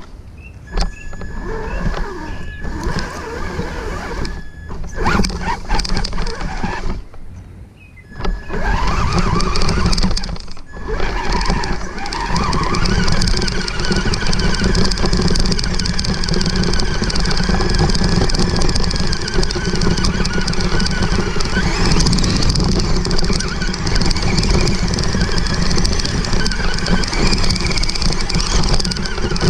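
Traxxas 1/16 Summit RC truck's electric motor and gears whining as it drives through long grass, with a rushing noise of the grass against the body and tyres, heard from a camera mounted on the truck. The throttle goes on and off with short pauses over the first ten seconds or so, then holds steady to the end.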